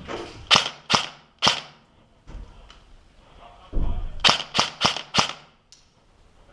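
Airsoft rifle firing single shots in quick succession: three sharp cracks about half a second apart, then a pause, then four more in a row.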